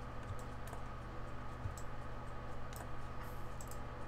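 A few faint, scattered clicks of a computer mouse over a steady low hum.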